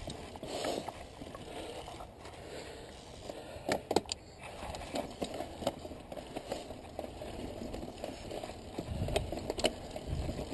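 Mountain bike rolling slowly over loose rock and dirt: tyres crunching and scraping on the gravel, with scattered sharp clacks of rock and bike parts rattling, and a stronger low rumble near the end.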